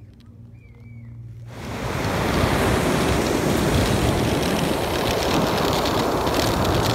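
Ocean surf breaking on a beach, with wind buffeting the microphone; it swells in about a second and a half in, after a quieter start, and then runs steadily.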